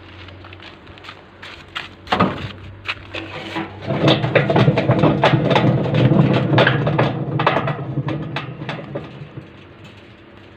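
Old Beko BKY 2313 C washing machine drum turning on a rusty, failed bearing: a heavy rumble with irregular clattering knocks. It is loudest from about four seconds in and fades toward the end.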